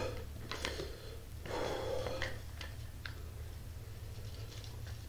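A heavy breath out, hissing for under a second, from a man whose mouth is burning from an extremely hot pepper chip, with a few light clicks and rustles of hands handling a small cardboard box.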